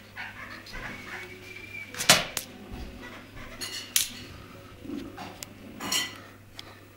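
A few sharp clattering knocks of hard objects against a tiled floor, with a short high ring after each: two close together about two seconds in, then one at four seconds and one at six.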